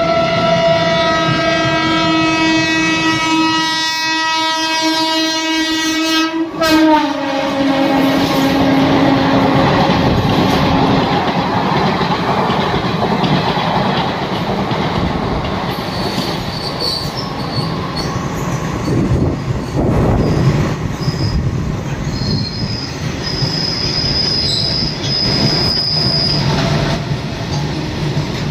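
Trains running through a station: a locomotive horn blows long and drops in pitch about six and a half seconds in as it passes, then the rumble and wheel clatter of passing coaches and wagons, with a high wheel squeal coming and going in the second half.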